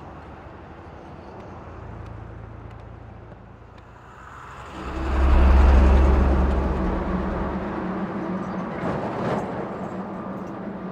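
Heavy cargo truck's engine rumbling as it approaches and passes close by. It swells sharply about five seconds in, is loudest for a couple of seconds, then fades as the truck pulls away.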